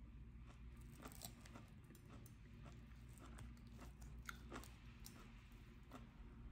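Faint, irregular crunching and clicking as a knife and fork cut through the crisp skin of an air-fried baked potato and tap the plate, over a low steady hum.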